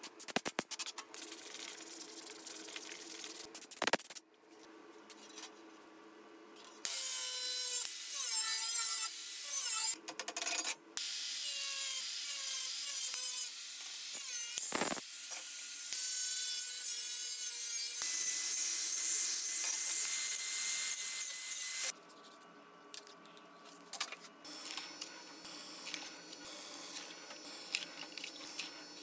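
An angle grinder with a cutting disc slices through thin steel sheet. Its high whine shifts in pitch as the disc bites, and it is the loudest sound, running for about fifteen seconds from a quarter of the way in. Before it comes quieter rubbing on a wooden box, and after it a drill press runs more quietly.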